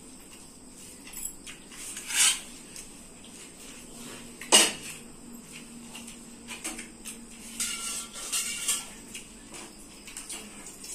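Metal plates and bowls clinking and knocking as two people eat rice by hand, with scattered light clicks. Two sharper knocks stand out, the louder about four and a half seconds in, and a run of clinks with a brief metallic ring comes near the end.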